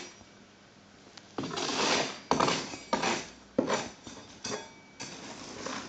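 A hand scraper pushing and scraping scenery filler across a model railway layout's scenery mound, in about five or six short strokes starting after a second and a half.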